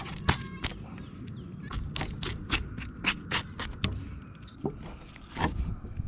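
Catfish skin being peeled off the body with pliers: a run of quick, sharp crackles and clicks, several a second, as the skin tears away from the flesh, with handling rustle underneath.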